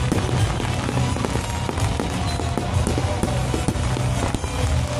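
Aerial fireworks exploding, a rapid run of sharp bangs and crackles, over loud music with a heavy bass.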